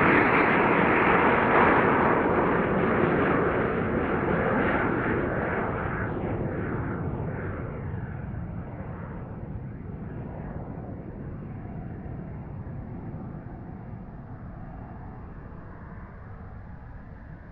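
Twin JetsMunt Merlin turbine engines of a large radio-controlled English Electric Lightning model jet, heard as a steady jet roar in flight. The sound is loudest at first and fades away steadily as the jet flies off.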